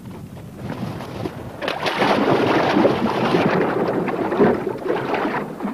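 Loud splashing and sloshing of water, starting about a second and a half in and easing off near the end.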